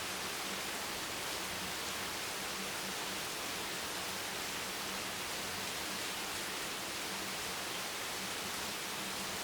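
Heavy rain hammering steadily on a beach bench, an even, dense wash with no single drops standing out.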